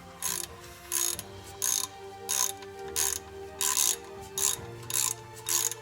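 Ratchet wrench worked in quick repeated strokes on the drive-shaft bolts, its pawl clicking in short bursts about once every three-quarters of a second.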